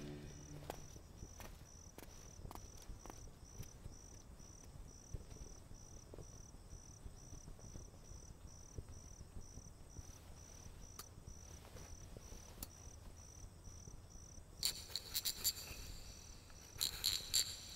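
A cricket chirps steadily at about two chirps a second. Near the end, clicks and rustles come as the cap of a small metal bottle is handled.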